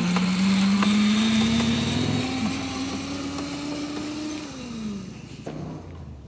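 A child's twist-throttle motorized ride-on bike pulling away: a steady motor whine that rises slowly in pitch as it gathers speed, then drops in pitch and fades about four and a half seconds in as it moves off.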